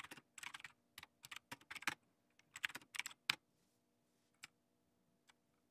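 Typing on a computer keyboard: a quick run of keystrokes through the first three and a half seconds, then a couple of single key presses.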